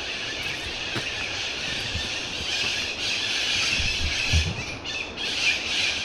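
A flock of parrots screeching together in a dense, high-pitched chorus that swells louder twice in the second half. It is shrill enough to be mistaken for a train's squeal.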